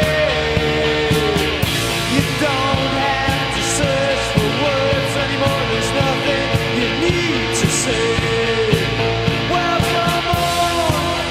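Psychedelic rock music: electric guitars holding droning notes with bending, sliding lines over steady drums, in a passage without vocals.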